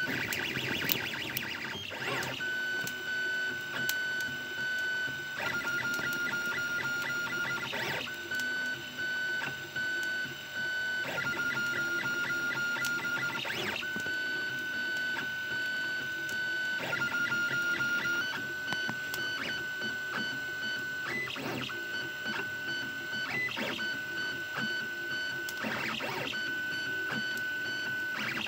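Prusa A6 3D printer printing, its stepper motors whining in steady tones that shift pitch every few seconds as the print head changes moves. There are stretches of fast, even ticking.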